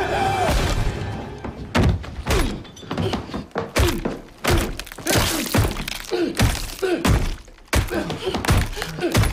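Film fight sound effects: a run of heavy thuds and blows, roughly two a second, starting about two seconds in, over dramatic film music.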